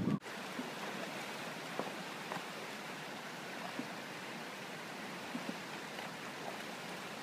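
Shallow rocky stream running: a steady rush of water over stones, with a few faint knocks.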